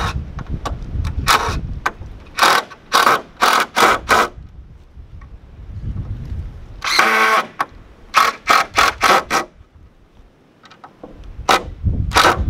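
Cordless impact driver driving screws into a wooden board in short trigger bursts, with one longer run about seven seconds in and a quick string of bursts just after it.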